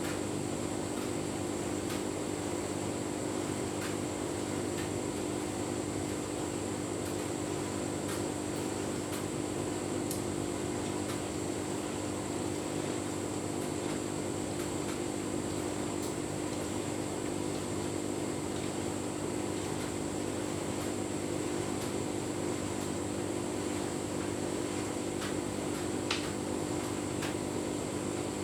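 Tumble dryer running with a full load of bedding: a steady hum of the motor and turning drum, with a few faint clicks.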